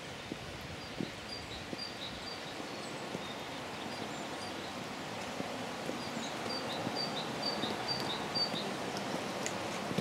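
Woodland outdoor ambience: a steady hiss of background noise, growing slightly louder near the end, with a small bird repeating short high chirps in two runs, and a few soft knocks.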